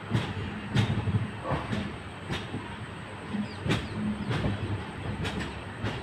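A passenger train coach's wheels knocking over rail joints and points at uneven intervals, over the steady rumble of the train running at low speed.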